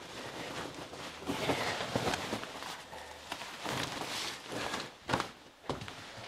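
Rustling of a heavy coat being pulled on, with footsteps and a few light knocks of handling.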